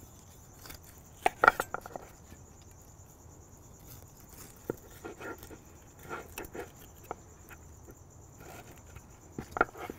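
Knife slicing between the bones of tender smoked beef ribs, with soft cuts and scattered light taps and clicks of the blade on a wooden cutting board, a few louder ones about a second and a half in.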